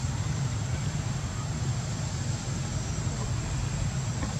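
Steady low outdoor rumble with a thin, steady high tone over it; no animal calls stand out.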